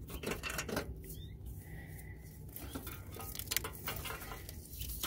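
Socket wrench working a 12 mm bolt: light metallic clicks and clinks in short, irregular runs, busier near the end.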